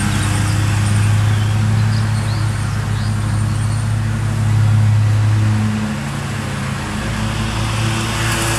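John Deere 915B zero-turn mower's 25 hp Kohler engine running steadily, its tone shifting slightly about seven seconds in.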